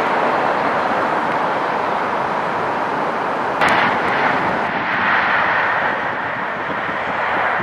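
Electric InterCity 225 express train running past at speed, a steady rushing rumble. About three and a half seconds in, an edit with a short knock, after which a similar steady rumble of a passing train carries on.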